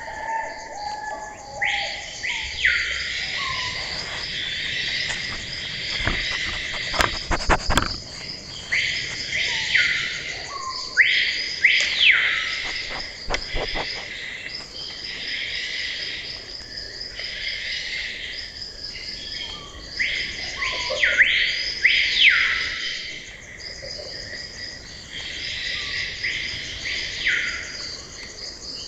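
Tropical forest ambience: a steady, pulsing insect chorus with a bird giving repeated loud calls that rise briefly and then sweep down in pitch, about a dozen over the stretch. A few sharp clicks come about seven seconds in and again near fourteen seconds.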